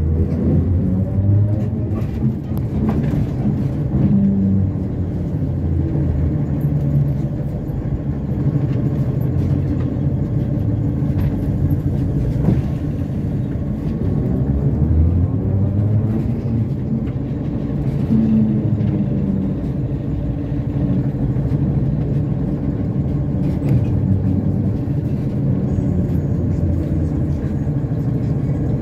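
ZiU-682 trolleybus under way, heard on board: a steady low rumble from the running gear and road, with the electric traction motor's whine gliding in pitch as it speeds up and slows down, near the start and again about halfway through. A few knocks come through from the road.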